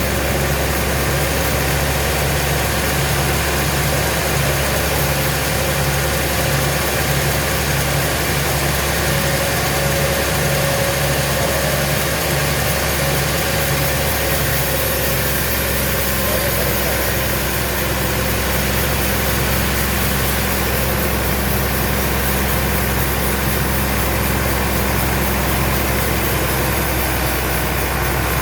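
An engine running steadily at an even level with a low hum, and a faint regular pulse in the low range through the first half.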